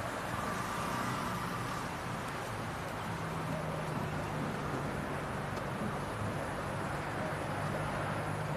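Steady outdoor background noise of road traffic, with a low steady hum that comes in about three seconds in.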